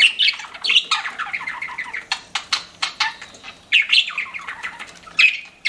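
Pet budgerigars chattering and warbling in runs of rapid chirps and clicks, with short pauses about three and a half and five seconds in.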